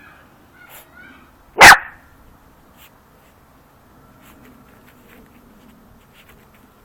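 A German hunting terrier (Jagdterrier) puppy gives one short, loud bark about a second and a half in, amid faint scratching of its paws digging in soil.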